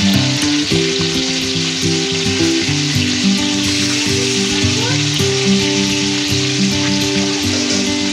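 Rohu fish steaks frying in hot oil in a kadai, a steady sizzle and crackle, with background music playing underneath.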